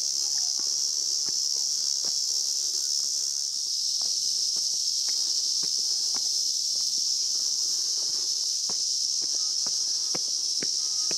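A chorus of cicadas droning steadily at a high pitch, with light footsteps on stone steps ticking every second or so beneath it.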